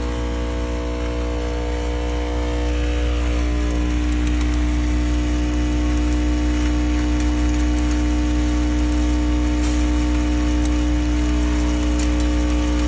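Sachet counting machine running: the motors of the rotary bowl feeder and the incline belt conveyor give a steady low hum with several steady tones over it, getting a little louder about two and a half seconds in.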